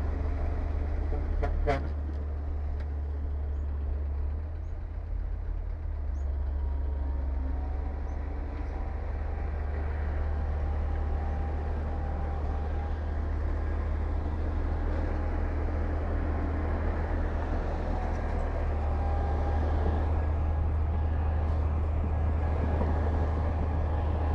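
Heavy diesel engine of construction machinery running with a steady low rumble, with a couple of sharp knocks about two seconds in.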